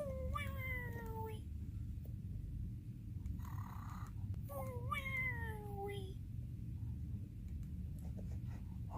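Cartoon snoring sound effect: two drawn-out, falling whistle-like tones about four and a half seconds apart, with a short breathy inhale between them, over a steady low hum.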